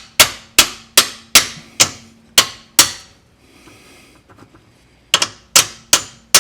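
Hand ratchet clicking steadily, one sharp click at a time, as an 8 mm bolt on the transfer case servo motor is backed out. It pauses near the middle and starts again at a quicker pace about five seconds in.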